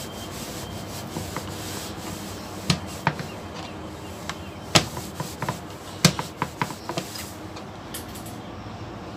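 A drinking glass rolled and pressed over slices of white bread on a plastic cutting board to flatten them: a rubbing scrape, with a series of sharp knocks in the middle of it, the loudest about five and six seconds in.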